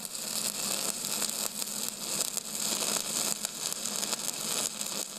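Steady crackling hiss, strongest in the treble, with a faint low hum underneath.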